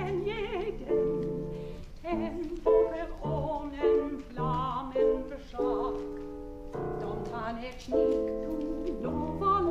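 Soprano singing a cabaret song with vibrato, with piano accompaniment.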